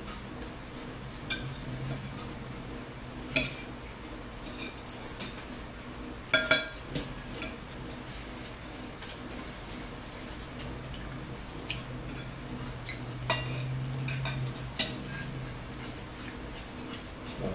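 Forks clinking and scraping against dinner plates in scattered, irregular clicks while two people eat, with a few closer together about six seconds in. A low steady hum runs underneath.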